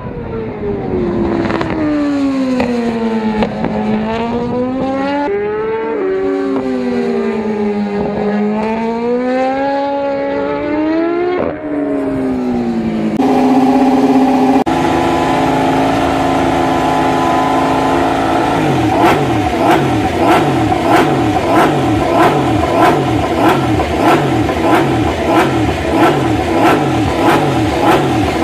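A racing motorcycle's engine at speed on track, its revs sweeping up and down several times. Then a Suzuki MotoGP bike's engine running on paddock stands in the pit garage, at first steady, then its revs rising and dropping about twice a second.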